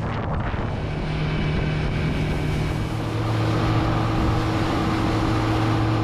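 Small motorboat's engine running steadily underway, with wind on the microphone and water rushing past the hull; the engine note shifts slightly about three seconds in.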